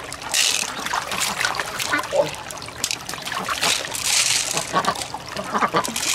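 Small wet blue beads clicking and rattling against each other and the shell as fingers stir them inside an open freshwater mussel shell, with water trickling. The sound comes in a few irregular bursts.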